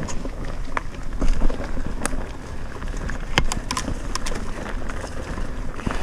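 Mountain bike rolling fast down a dirt trail: tyre and trail noise with a low rumble from wind on the camera microphone. The bike rattles and gives a few sharp clicks as it bumps over the ground.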